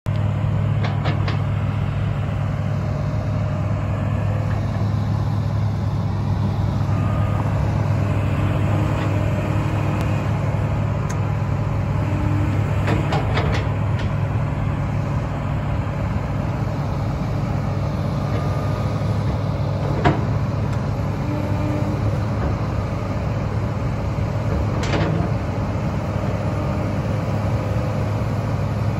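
Komatsu PC300LC-8 hydraulic excavator's six-cylinder diesel engine running steadily under load while it digs, with a low drone and a few sharp clanks, the loudest about twenty seconds in.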